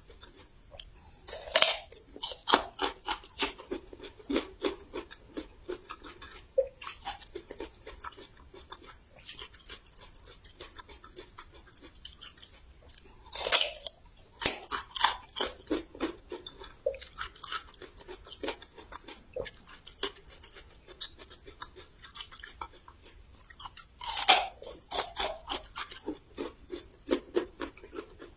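Crisp bites into raw young ginger, each followed by loud crunchy chewing close to the microphone. There are three big bites about ten seconds apart, each followed by a quick run of crunches that tapers off.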